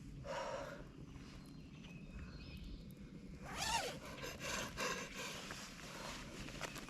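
A man's heavy breathing and grunting, with a short rising-and-falling groan a little past halfway.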